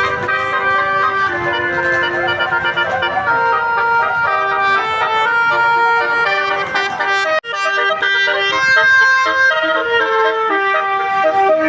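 Basuri 'telolet' multi-tone bus horn playing a melody, note after note of steady, bright tones. It breaks off for an instant about seven seconds in.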